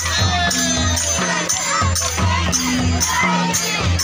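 Jhumur folk music: a steady, repeating low drum beat with regular sharp cymbal-like strikes and a wavering melody above, with crowd noise under it.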